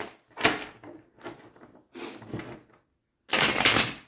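A deck of tarot cards shuffled by hand in four short bursts of riffling and sliding, the last one, near the end, the loudest and longest.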